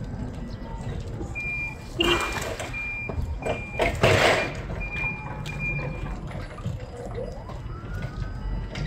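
Forklift running with its reversing alarm sounding, a single high beep repeating about twice a second over a steady engine rumble. Two short, loud bursts of noise come about two and four seconds in, and a rising whine near the end.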